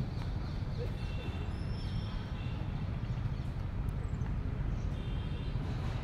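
Steady low rumble of outdoor wind buffeting a phone microphone, with a few faint high chirps about a second in and again near the end.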